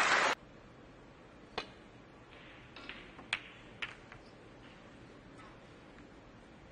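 Applause cut off abruptly right at the start, then a hushed snooker arena with a few sharp, separate clicks of cue tip and balls, as a break-off shot sends the cue ball into the pack of reds.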